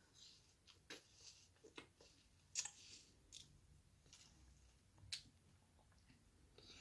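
Faint wet mouth clicks and smacks of a toddler eating watermelon by hand, a few short ones scattered through, the loudest about two and a half seconds in.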